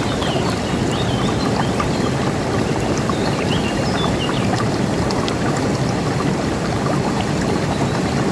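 River water rushing steadily, with small birds chirping now and then over it.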